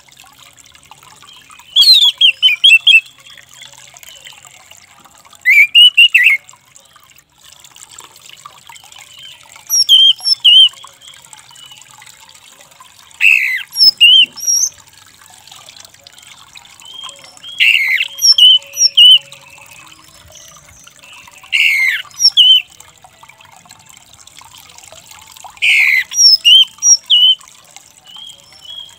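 Orange-headed thrush calling in short harsh phrases about every four seconds. Each phrase is a falling squawk followed by a few quick chirps.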